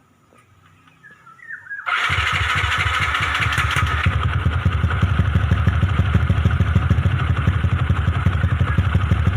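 Small motorcycle engine, freshly rebuilt with a 65 mm big-bore block and 4 mm stroker crank, starting about two seconds in and then running steadily with a fast, even exhaust pulse.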